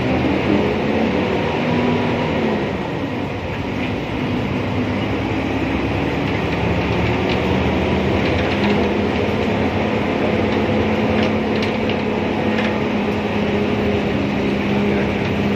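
Cabin noise of a moving city bus: engine and drivetrain running under road noise, with the fittings rattling and clicking now and then. A steady hum comes in about halfway through.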